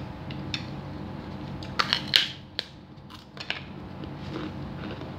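A person eating soto ayam (chicken noodle soup) with a spoon: chewing, with a cluster of sharp clicks and smacks about two seconds in and a few more about three seconds in.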